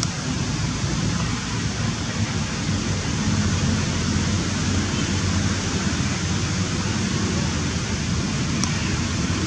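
Steady rushing background noise with a faint low hum underneath; no calls from the monkey.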